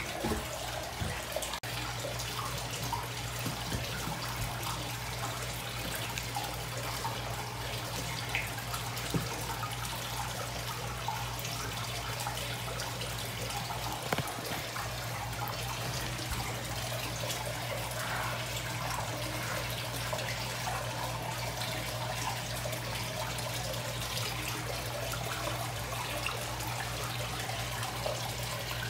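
Water running and trickling steadily in an indoor fish pond, with a low steady hum underneath.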